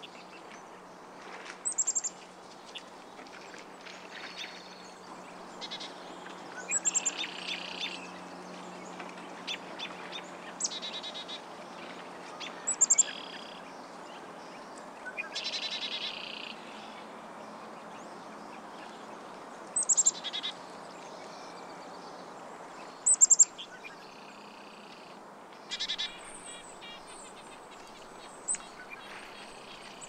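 Small birds chirping: short, high calls every second or two, some in quick clusters, over a steady low hum.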